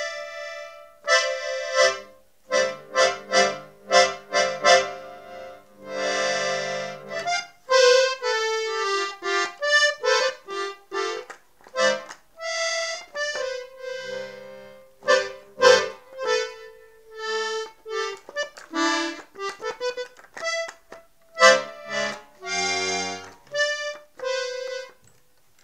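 Piano accordion playing a tune solo: a melody of many short, separated notes on the treble keyboard, with chords and low bass notes from the left-hand buttons coming in now and then.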